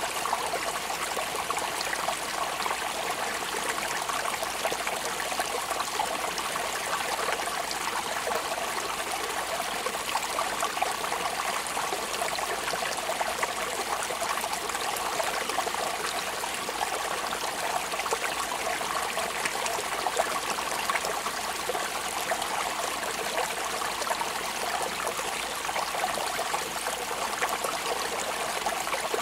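Steady rain falling: a continuous, even hiss of water with many small drops ticking through it.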